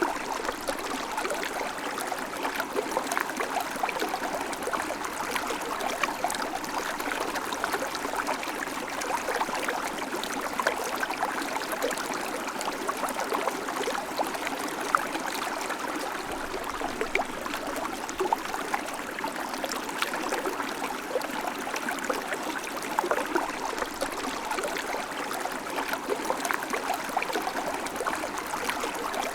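River water flowing steadily, a continuous rushing with fine splashes and gurgles over rocks.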